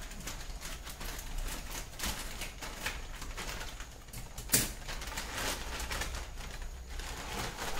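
Plastic instant-noodle packet crinkling and rustling as it is handled and cut open with scissors, with one sharp snip about halfway through, over a faint low steady hum.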